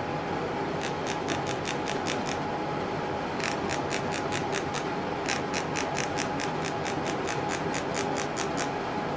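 Rhythmic rasping, about six strokes a second, in runs broken by short pauses: the wire handle of a small mesh sifter being rubbed to shake black vitreous enamel powder through onto copper. A steady hum runs underneath.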